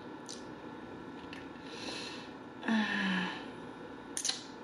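A woman breathing out audibly through closed lips, with a short, low 'mm' hum about three seconds in, and a sharp wet mouth click near the end.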